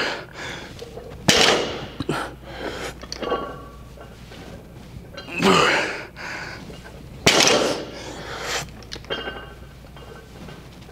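A man breathing out hard and grunting through a heavy lifting set: three loud, sudden breaths a few seconds apart, one dropping in pitch like a strained grunt.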